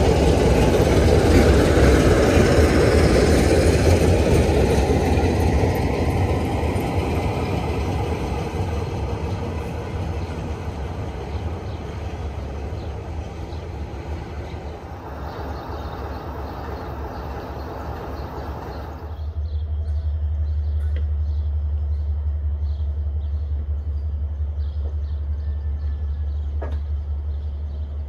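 A diesel locomotive passes close by, its engine and wheels loudest in the first few seconds and fading slowly as it moves away. About two-thirds of the way in, this gives way abruptly to a steady low hum.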